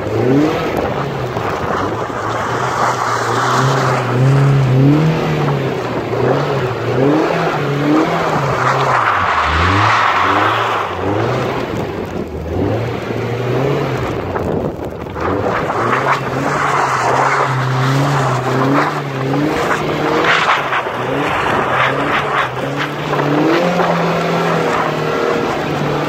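Sports car engine revving up and down over and over as the car slides in circles on snow, its pitch climbing and falling every second or two, with a steady hiss of tyres and wind over it.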